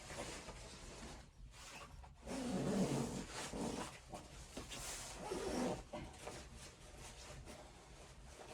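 A dog making low vocal sounds in two spells: a longer one about two seconds in and a shorter one about five seconds in.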